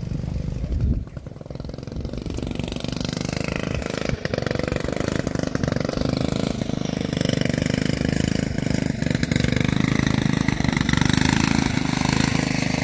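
A small engine running steadily, growing louder over the first several seconds and then holding level.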